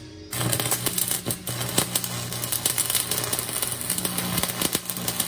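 Stick-welding arc crackling steadily as a flux-coated rod lays a weld on steel square tubing, with a low steady hum underneath. The arc strikes about a third of a second in.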